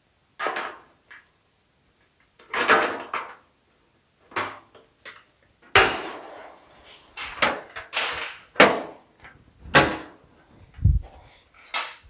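Hand-shaped sheet-metal fender panel being handled and fitted against a wire buck: a string of separate scrapes, rustles and light knocks, the one about six seconds in sharper than the rest, then a dull thump near the end.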